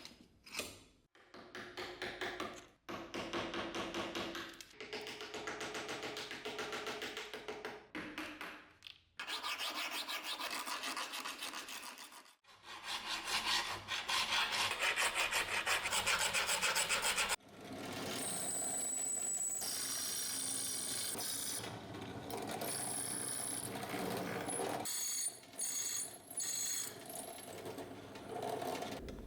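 Rapid back-and-forth hand scraping of rust off an old steel knife blade, in several bouts with short pauses between them.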